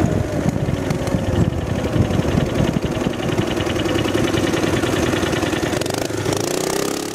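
10 hp Tecumseh small engine of a Baja mini bike running under way through its torque converter, rising in pitch near the end as it speeds up, then fading out.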